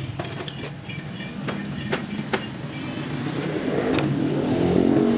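Small sharp metal clicks and taps of a screwdriver working inside an angle grinder's housing, over a steady rumble of street traffic. A vehicle grows louder near the end.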